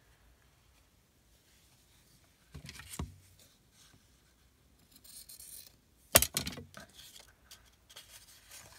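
Craft papers and a piece of fabric being handled on a cutting mat: a couple of knocks, a brief rustle, then a sharp click just after the middle, with lighter taps and clicks after it.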